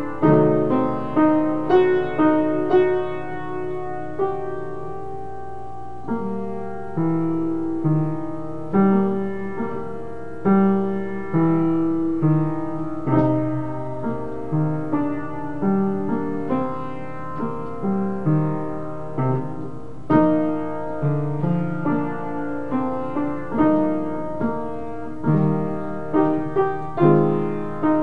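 Piano music: a continuous run of struck notes and chords that die away as they ring.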